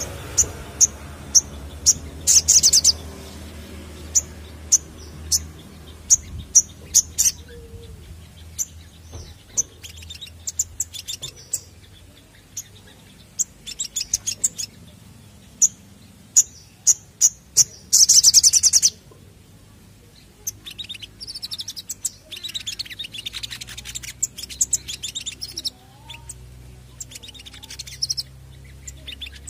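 Male olive-backed sunbird singing: a string of sharp, high chirps, broken by a fast buzzy trill about two seconds in and another around eighteen seconds, then a quicker twittering run near the end.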